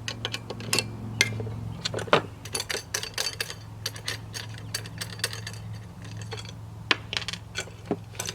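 Irregular metallic clicks and clinks of a hand wrench working a small hex nut off a bolt on a Granberg edging mill's metal frame, over a steady low hum.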